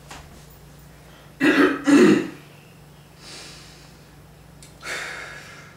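A young man clearing his throat, two short loud bursts about a second and a half in, followed by a softer breathy exhale near the end.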